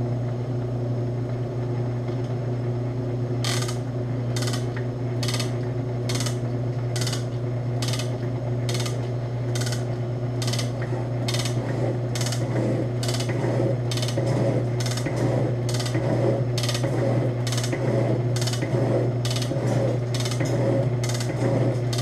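Ammco 7-inch metal shaper running through a roughing cut: a steady motor hum, and from about three and a half seconds in a rhythmic mechanical click about every second as the ram strokes back and forth. The cut is about 15 thousandths deep, near the limit the machine takes without strain.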